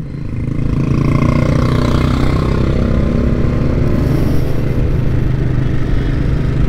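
Motorcycle engine running as the bike rides along, building up over the first second and then holding steady, with road and wind noise.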